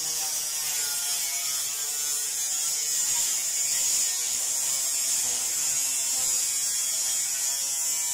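Angle grinder cutting through a thin steel sheet, running steadily with a high hiss from the disc in the metal.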